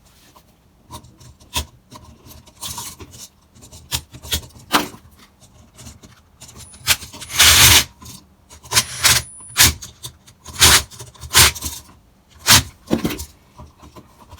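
Stiff electrical wires and a wall outlet being worked into an electrical box by hand: irregular rubbing and scraping with sharp clicks, loudest about seven to eight seconds in.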